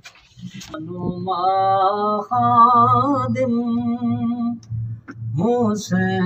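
A man singing long, held, slightly wavering notes in two phrases, with a short break about five seconds in.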